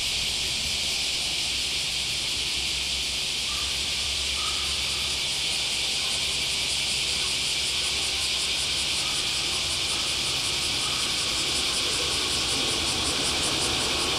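A chorus of cicadas: a steady, high, hissing drone that takes on a fast pulsing shimmer from about halfway through.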